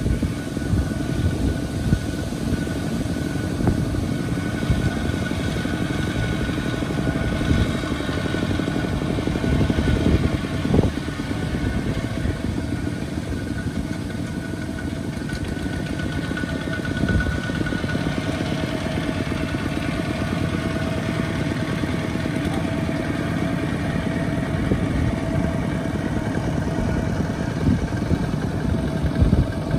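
Single-cylinder diesel engines of two-wheel walking tractors running steadily, with a fast low rhythm, as they haul trailers through deep mud.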